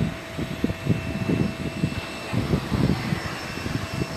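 Wind buffeting the microphone in irregular low rumbling gusts, over a faint steady street hum.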